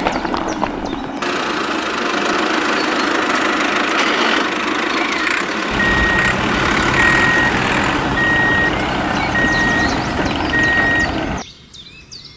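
Toy tractor's rock-drill bit grinding into gravel with a steady rattling noise. About six seconds in, a low engine hum starts and a reversing alarm beeps five times, a half-second beep about every 1.2 seconds; the sound cuts off sharply near the end.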